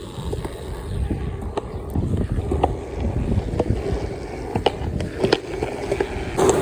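Skateboard wheels rolling on wet pavement: a rough, uneven low rumble with a sharp click every second or so.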